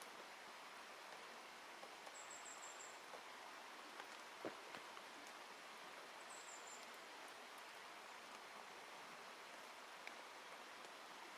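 Near silence in a forest: a faint steady hiss with a few scattered soft taps, the loudest about four and a half seconds in. A small bird gives two brief, very high-pitched trilled calls, about two and six seconds in.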